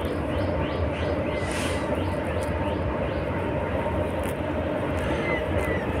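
Train passing by: a steady, unbroken rumble of wheels on rails.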